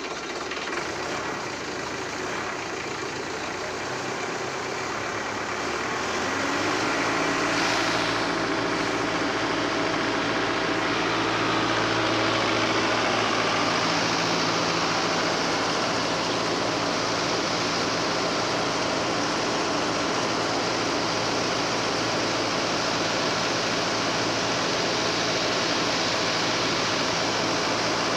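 Preet tractor's diesel engine running as it drives a tractor-powered rice mill. About six seconds in the sound grows louder and fuller as the mill comes up to speed, then it runs steadily.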